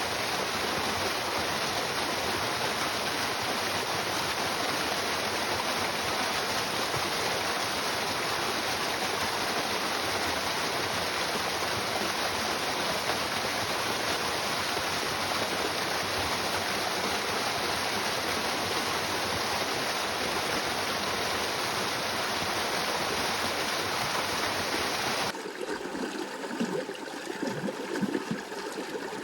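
River water flowing with a steady, even rush. About 25 seconds in it cuts off suddenly and gives way to a quieter, closer trickling and gurgling of water.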